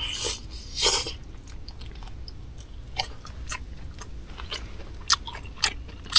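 A person eating noodle soup close to the microphone: two slurps in the first second, then small chewing and clicking mouth sounds.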